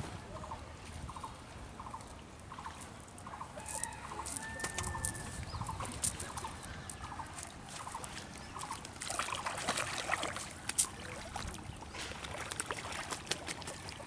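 A chicken clucking over and over, short calls about twice a second, with one longer drawn-out call partway through. In the second half there are scattered clicks and rustling.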